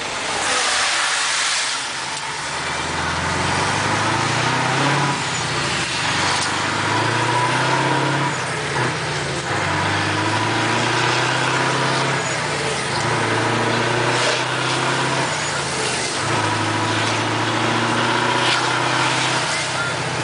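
Scania V8 truck engine pulling on the road, heard from inside the cab, its low note stepping up and breaking off again and again with gear changes and throttle.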